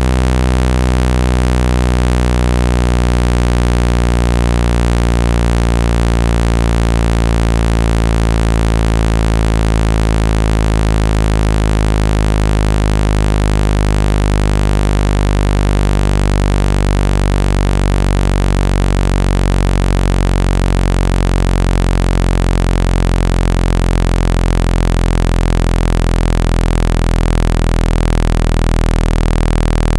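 Loud, steady synthetic low buzzing tone with many overtones: a speaker-cleaning tone meant to shake water and dust out of a phone speaker.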